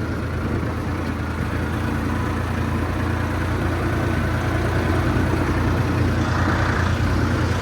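Farmtrac 50 tractor's diesel engine running steadily as the tractor is driven along the road.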